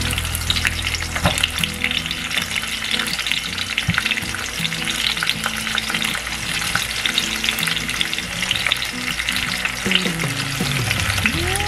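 Whole plums, garlic cloves and dried chillies frying in hot oil, a steady sizzle full of quick crackles.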